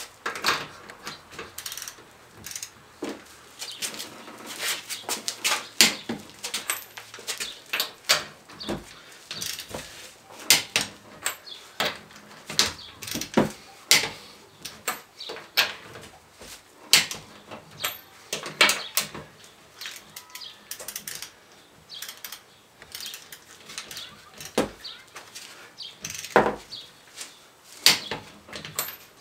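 Irregular clinks, clacks and knocks of hand tools and wheel hardware during a wheel change, with many sharp hits at uneven intervals.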